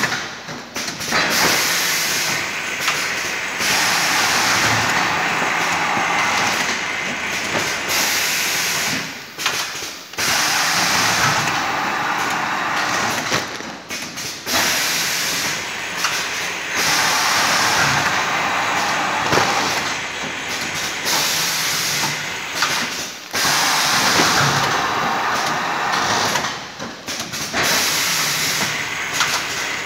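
Automatic atta flour packing machine line running: a loud, steady hissing mechanical noise, briefly dipping every few seconds.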